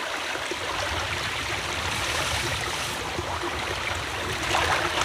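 Shallow water in a muddy ditch flowing and sloshing around a wading man's legs and hands as he gropes along the bottom, a steady rushing trickle.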